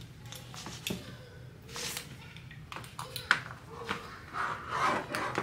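Metal swivel-hook clasps of bag handles being unclipped from their hardware: a few light metallic clicks and clinks, with handling and rustling of the vinyl bag in between.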